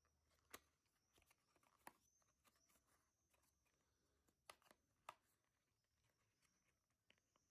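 Faint handling of a small paperboard product box as its end flap is opened: a few sharp clicks and taps about half a second, two, four and a half and five seconds in, with light crackles between.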